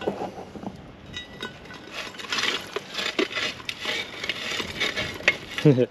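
Metal shovel scraping through and tipping charcoal embers around a cast iron camp oven: coals crunching and clinking, with scattered sharp clicks and a denser run of scraping from about two seconds in.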